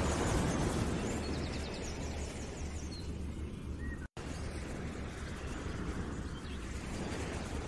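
Outdoor nature ambience under the slideshow: a steady rushing background noise with a few short bird chirps, cutting out for an instant about four seconds in.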